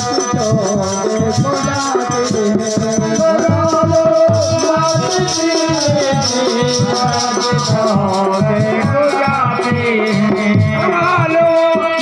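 Devotional kirtan music: a dholak drum played by hand under a fast, even pulse of small hand percussion, with a held, wavering melody line above.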